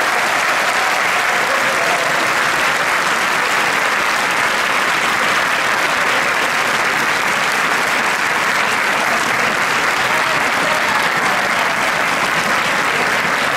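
Audience applauding steadily, a long round of clapping at the end of a performance.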